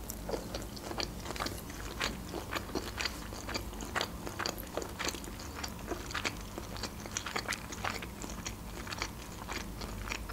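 A person chewing a mouthful of sushi roll close to the microphone, with many small irregular clicks, several a second.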